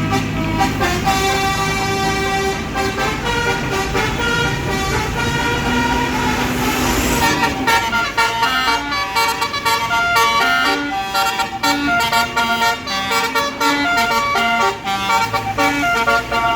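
Basuri telolet multi-tone bus horn playing a tune in stepped notes over a running bus engine. About halfway through, the engine rumble fades and the tune changes to shorter, quicker notes.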